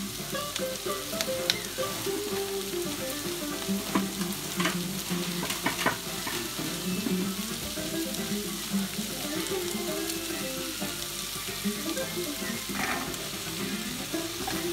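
Onion, parsnip and celeriac sweating in soya butter in a stainless steel pot, a steady sizzle with a few sharp clicks. Near the end a wooden spoon stirs the vegetables.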